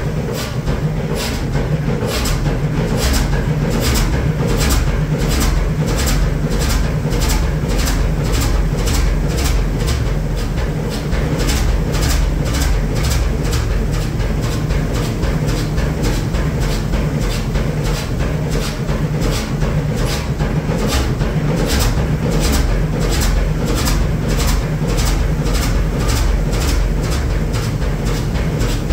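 Fairbanks Morse 32E six-cylinder two-stroke diesel running steadily: a deep low rumble with a sharp, even clatter repeating about twice a second.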